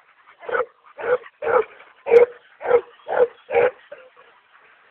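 A dog barking repeatedly, about two short barks a second, stopping a little before four seconds in.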